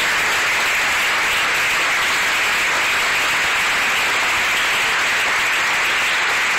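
Audience applauding steadily, a dense, even clapping with no let-up.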